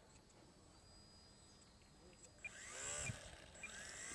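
The small electric motor and propeller of an ultra-micro RC biplane, heard faintly as a whine whose pitch sweeps down and back up as the plane passes about two and a half seconds in. Near the end it becomes a steadier whine.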